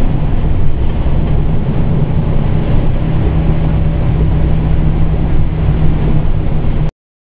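Pierce Enforcer fire engine heard from inside its cab while under way: a steady, loud drone of the engine with road and tyre noise. The sound cuts out completely for under a second near the end.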